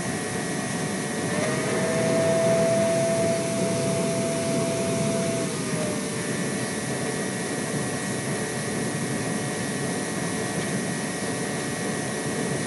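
Wet/dry shop vacuum running steadily with a rushing noise. About a second in, a whining tone comes in over it and holds for roughly four seconds before dropping away, as the motor's load changes.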